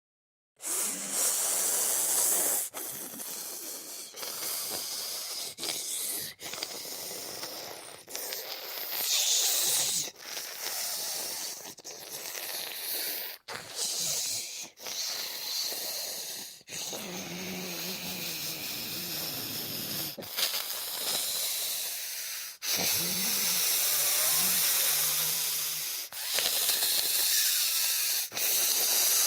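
Zombie sound effects: a string of short, raspy hissing breaths and wheezes, each cut off by a brief gap, with low moaning groans a little past halfway through.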